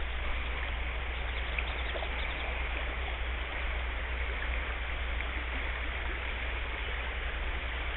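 River water flowing steadily over a shallow, rippled stretch of current, an even rushing sound.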